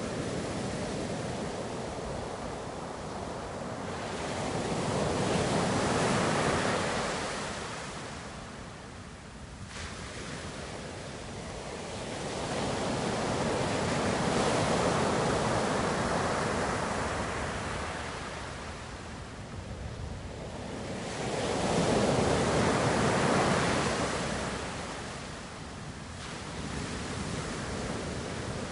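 Ocean waves breaking and washing back. There are three slow surges, each rising to a peak and then fading.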